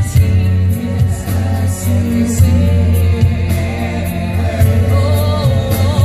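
Live concert music: women singing into microphones over a band with a strong, steady bass. Near the end one voice holds a note with a wide vibrato.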